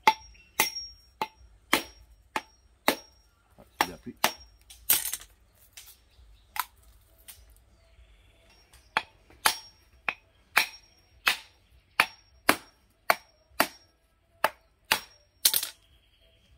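Sharp knocks of a machete striking a hand-held coconut, about two a second, cracking the shell open. The knocks stop for a couple of seconds in the middle, then resume.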